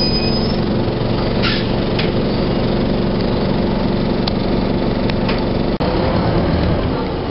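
1997 NovaBUS RTS bus's Detroit Diesel Series 50 inline-four diesel engine running steadily at an even pitch. There are a few light clicks and a momentary dropout about six seconds in.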